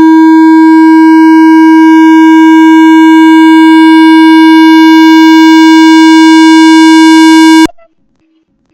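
A loud, steady, buzzy electronic tone held on one pitch. It lasts about seven and a half seconds, then cuts off suddenly.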